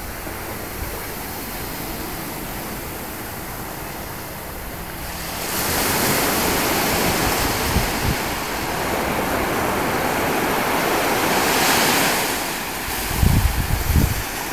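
Surf washing up onto a sandy beach, a steady wash that swells louder about halfway through and eases off near the end. Wind buffets the microphone in low gusts near the end.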